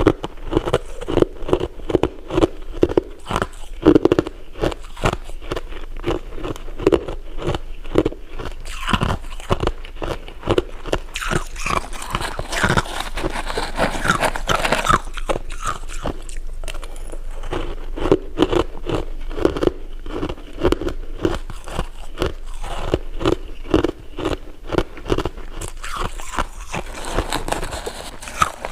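Close-miked eating: rapid, crunchy chewing and biting, a dense stream of small crackles and crunches.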